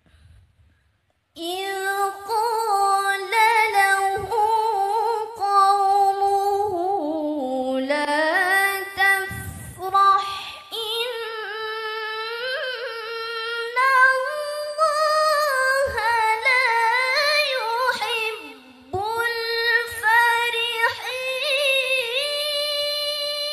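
A young woman's solo Qur'an recitation (tilawah) in Arabic, sung in a melodic style into a hand-held microphone. It moves through long held notes with wavering ornamental turns, starting about a second and a half in. There are brief pauses near the middle and about two thirds through, and the second half holds higher notes.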